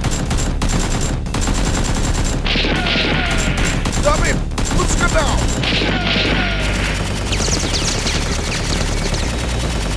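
Automatic gunfire sound effect: rapid shots fired in bursts, with two longer sustained bursts.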